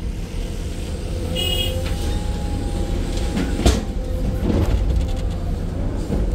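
Excavator diesel engine running steadily. A short high beep comes about one and a half seconds in, and a single sharp clank comes just past the middle.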